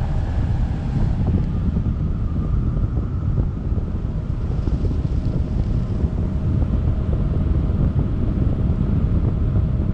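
Wind buffeting the microphone of a selfie-stick camera in open-air flight on a paramotor trike, a steady low rumble, with a faint steady hum underneath.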